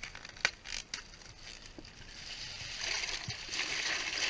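Ice cubes being poured from a plastic bag into a bucket of water: a few sharp clicks in the first second, then from about two seconds in a growing clatter and splashing of ice, with the bag crinkling.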